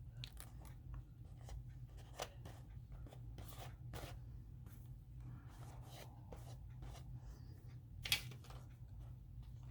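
Paper being handled and cut with scissors: faint rustles and scattered soft snips and clicks, with one sharper click about eight seconds in. A low steady hum sits underneath.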